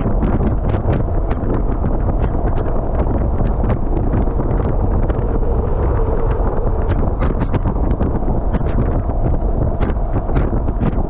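Heavy wind buffeting on the action-camera microphone of a motorcycle riding at road speed, a steady low rumble with frequent crackles, over the bike's engine and tyre noise.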